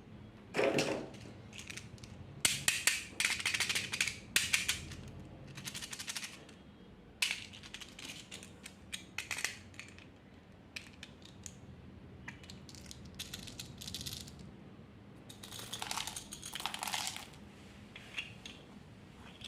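Small hard candies clattering and rattling against each other and a hard tub in several bursts, with a heavier thud about a second in.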